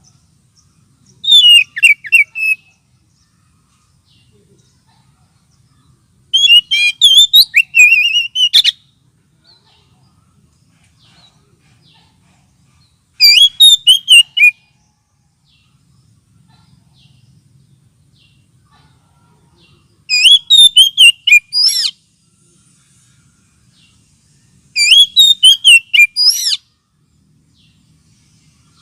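Oriental magpie-robin (kacer) singing five short bursts of rapid, varied whistled notes, separated by pauses of a few seconds. It is a lure song played to draw in or stir up magpie-robins.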